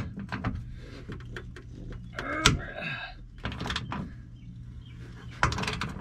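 A wrench with a 19 mm socket clicking and clanking against a leaf-spring bushing bolt on a Toyota Tacoma as the bolt is worked loose: a run of small clicks, one sharp metallic knock about two and a half seconds in, and short clattering bursts after it.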